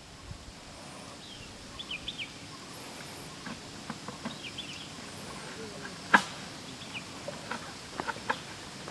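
Outdoor forest ambience with small birds giving short chirping calls on and off, and a few faint ticks. One sharp crack about six seconds in is the loudest sound.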